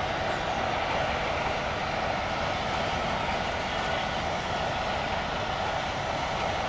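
Diesel locomotive's engine running steadily under power as it approaches hauling a train of coaches.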